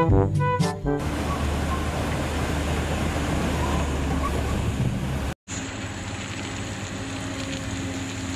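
Brass music cuts off about a second in. A tracked excavator's diesel engine then runs under a rush of water pouring over a river weir. After a sudden break about halfway through, a Caterpillar excavator's engine runs steadily with a thin high whine as it digs.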